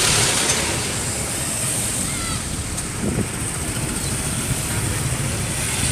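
Steady rushing street noise of road traffic, with wind buffeting the microphone.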